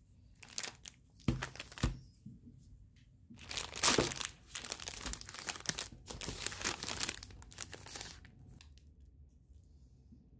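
Plastic stroopwafel packaging crinkling and rustling as it is handled and opened. There are a few short rustles in the first two seconds, then a longer stretch of crinkling from about three and a half to eight seconds in, after which it goes quiet.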